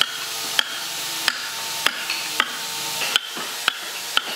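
Wooden mallet striking a carving chisel into a solid log, eight sharp knocks at a steady pace of about one every half to three-quarters of a second, over a steady hiss.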